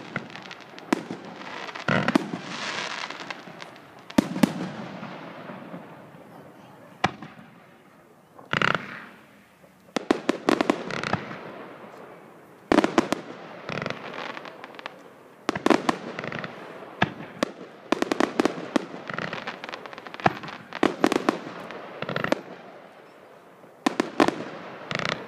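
Fireworks display going off: many sharp bangs at irregular intervals as shells launch and burst, some coming in quick strings of pops, with rushing crackle between them.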